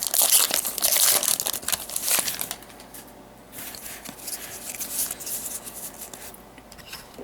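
Foil trading-card booster pack wrapper crinkling as it is torn open: loud crackling for the first two and a half seconds, then softer rustling.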